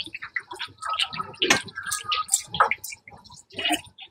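Irregular crackling and spitting of scallion pancakes frying in oil on a griddle, with scattered sharp clicks.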